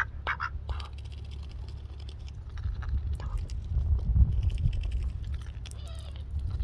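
A duck gives a few last quick quacks in the first second, then only soft irregular clicking and pattering over a low rumble, with one short call near the end.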